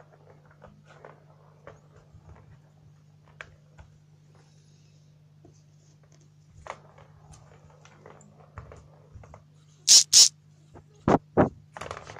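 Persian kittens playing: soft scattered taps, patters and rustles of paws and toys. Then, near the end, several loud short scuffs and brushes right at the microphone.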